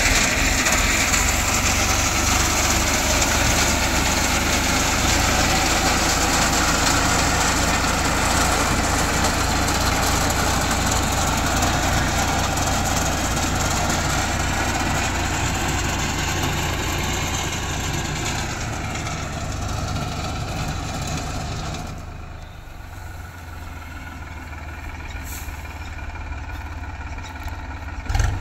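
Tractor engine running as it drives a front-mounted BCS reaper binder through standing wheat, loud and steady while close, then dropping off sharply about 22 seconds in as it moves away. A brief thump near the end.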